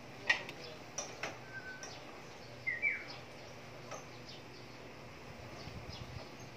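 Metal cookware clacking on a gas stove: one sharp clack just after the start and two lighter knocks about a second in. A short high chirp comes near the middle, then faint scraping clicks of a spatula stirring vegetables in the pot.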